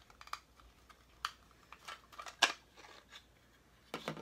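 Hard plastic action-figure torso pieces of a Marvel Legends build-a-figure clicking and knocking together as they are handled and pressed to seat a peg. The clicks are scattered, and the sharpest comes about two and a half seconds in.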